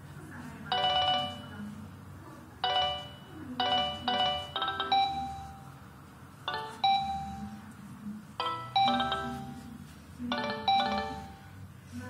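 Nokia 6070 ringtone playing through the phone's loudspeaker: a synthesized melody of short, bright notes in quick groups, separated by brief gaps.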